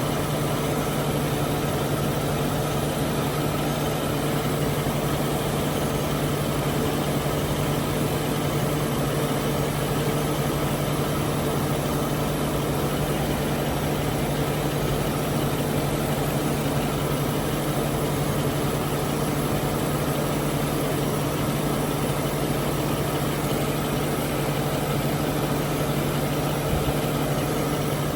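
Mercury Grand Marquis V8 idling in a steady hum, with the air conditioning running on max while its system is being recharged with refrigerant from a can.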